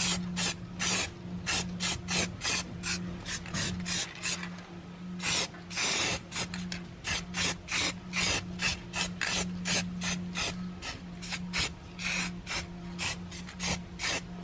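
Rapid back-and-forth abrasive strokes by hand, like filing or rubbing down a part, about two to three strokes a second, over a steady low hum.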